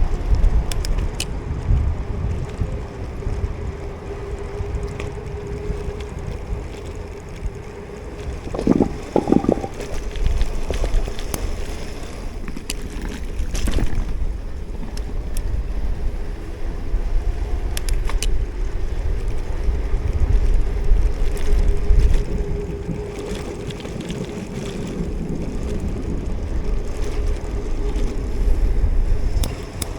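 Riding noise from an electric bike at speed: wind buffeting the microphone, over a faint steady whine that fades in and out. A brief pitched sound cuts through about nine seconds in.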